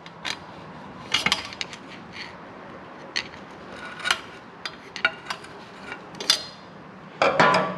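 Scattered light clicks and small scrapes, irregular and a second or so apart, as the crush washer stuck to the bottom of the engine at the drain hole is worked off by hand.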